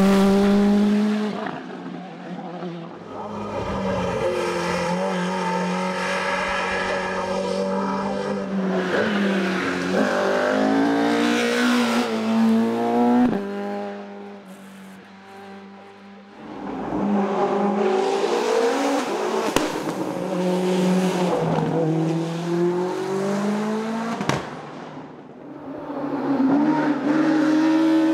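Racing car engines run hard on a hillclimb course, the engine note repeatedly climbing and dropping with gear changes as the cars pass. The sound fades twice, briefly, between the loud stretches.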